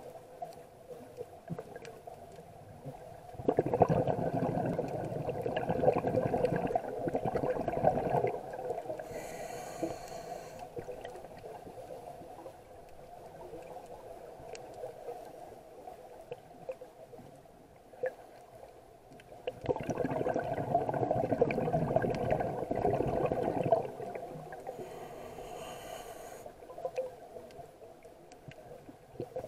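Scuba diver breathing through a regulator underwater: two long, bubbling, crackling exhalations of about four seconds each, each followed a second or two later by a short hiss of inhaling through the regulator.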